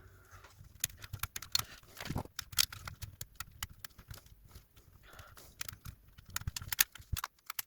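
Irregular small plastic clicks and taps from a DualSense controller's parts being handled and pressed into place during reassembly.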